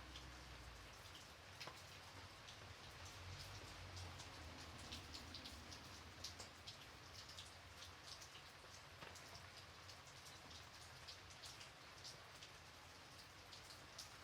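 Faint, gentle rain: a soft even hiss with many separate drops landing as short clicks.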